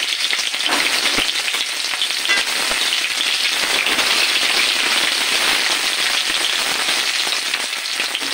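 Cumin seeds sizzling and crackling in hot oil in a kadhai, a steady hiss with a few sharp pops about a second in.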